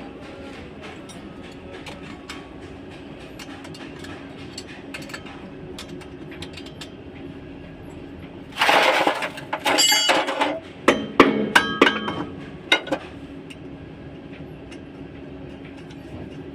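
Metal clanking and clinking of tools and drive-shaft parts being handled and struck, over a steady background hum. After a stretch of light ticks comes a loud clatter lasting about two seconds, then a run of sharp ringing metal knocks.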